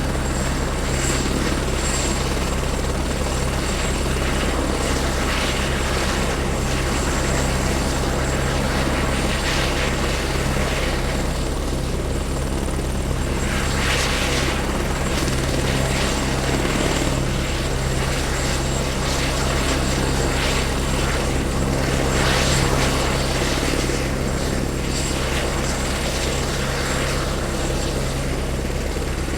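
Helicopter running steadily, with its rotor and engine at an even level and a thin steady high whine above them.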